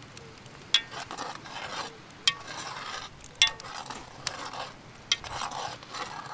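Stirring in a steaming cooking pot: a sharp knock against the pot about once a second, each followed by a short scraping noise.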